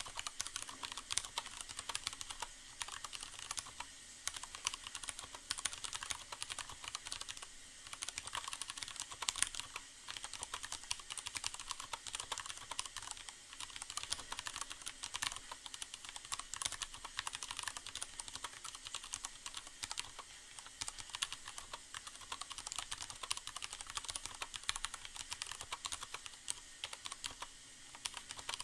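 Continuous fast typing on a Leopold FC750R mechanical keyboard with Cherry MX Brown tactile switches: a dense run of keystroke clicks and clacks, damped by the board's internal sound-absorbing pad. A faint steady hiss of rain sounds lies underneath.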